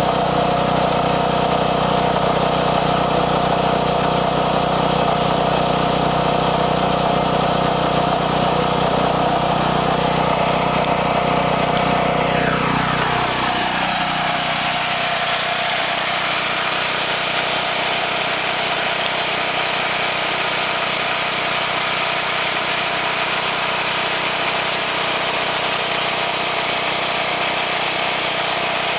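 Generac home standby generator's engine running steadily during a manual test run, pretty loud. About halfway through, the low hum fades and a tone glides downward, leaving a slightly quieter, noisier steady running sound.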